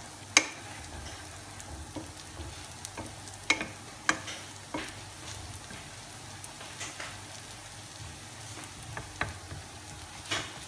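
Garlic and onion sizzling steadily in olive oil in a pan over low heat, while a utensil stirring them knocks and scrapes against the pan every second or few, the sharpest knock about half a second in.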